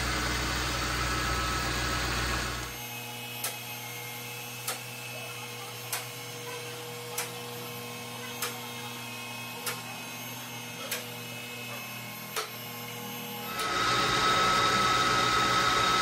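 A steady mechanical running sound cuts out about three seconds in. A quieter stretch follows with a sharp click about every second and a quarter. Near the end a car lift's electric pump motor starts up with a steady whine.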